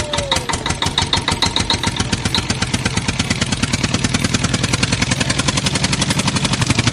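Tractor engine sound, chugging at a rapid, even beat and growing louder toward the end.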